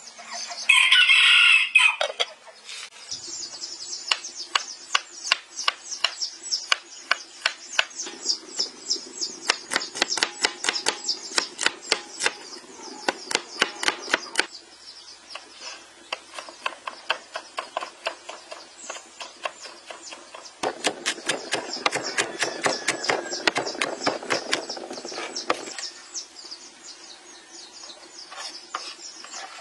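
A rooster crows once about a second in. Then a cleaver slices garlic on a cutting board in long runs of quick, even chops, about four a second, with short pauses between runs.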